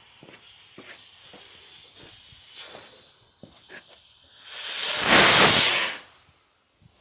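A lit firework hissing: faint crackling and sputtering with small clicks, then about four and a half seconds in a loud rushing hiss that swells for a second and a half and stops abruptly.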